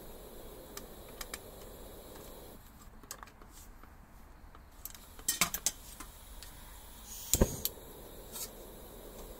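Metal parts of an Optimus 99 camping stove clinking and rattling as they are handled: a few light ticks, then a cluster of sharp clinks about five seconds in and the loudest clatter about seven seconds in.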